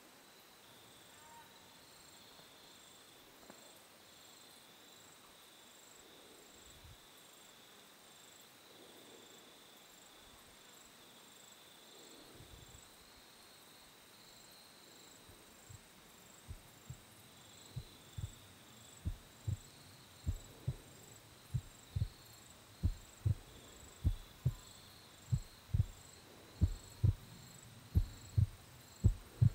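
Insects chirping steadily in an even, high-pitched pulse. From about halfway through, low muffled thumps on the microphone start up, about two a second, and grow louder until they are the loudest sound.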